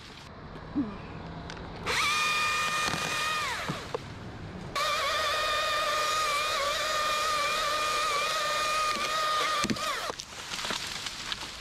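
Battery-powered top-handle chainsaw whining at a steady pitch. It runs for about a second and a half and spins down, then runs again for about five seconds while cutting through a branch, and winds down near the end.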